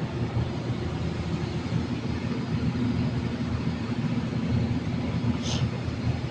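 Steady low drone of running machinery with a faint steady hum in it. A brief high squeak comes about five and a half seconds in.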